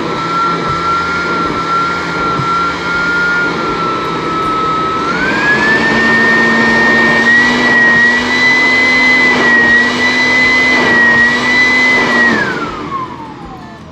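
Heavy-duty electric air blower and vacuum cleaner running with a high motor whine. The whine steps up in pitch and loudness about five seconds in. Near the end the machine is switched off and the whine falls away as the motor spins down.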